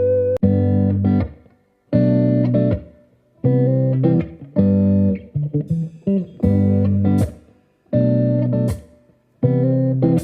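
Background music: plucked guitar chords in short phrases of about a second, each separated by a brief pause.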